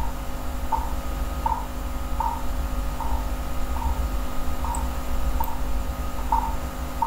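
Background room noise from the recording setup: a steady low rumble and electrical hum, with a short tick roughly every three-quarters of a second.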